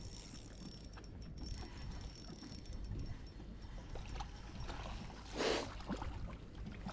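Low steady rumble of wind and water around a small fishing boat, with light mechanical ticking like a spinning reel being wound. One short rushing burst comes about five and a half seconds in.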